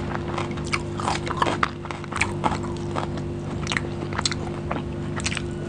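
Close-miked eating of tandoori chicken: the meat torn apart by hand and chewed, with many short, sticky clicks and crunches. A steady low hum runs underneath.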